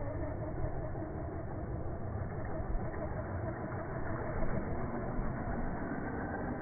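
Electric motor of a 1:10 RC truggy whining at a fairly steady pitch as it drives over snow, with a rushing noise from the tyres in the snow.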